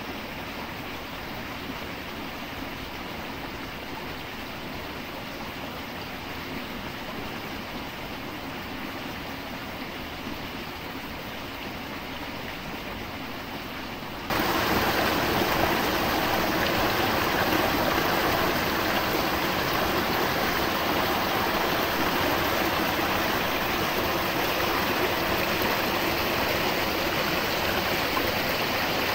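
Rushing water of a forest stream, a steady even roar. About halfway through it jumps suddenly louder and fuller, and stays that way.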